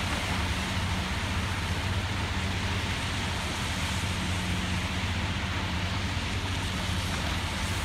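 Diesel engine of a Liebherr 954 long-reach demolition excavator running steadily, a low hum over an even hiss of outdoor noise.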